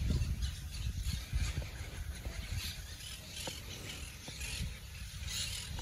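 Wind buffeting the microphone outdoors: a gusty low rumble that rises and falls, strongest near the start and easing off in the middle.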